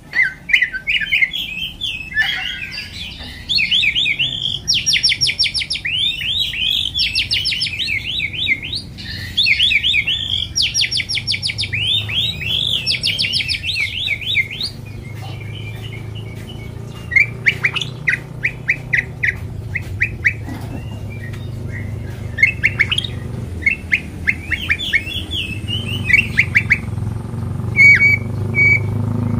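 White-rumped shama singing: fast rattling trills and varied whistled phrases packed together for about the first half, then shorter, sparser bursts of notes with pauses between them. A steady low hum runs underneath.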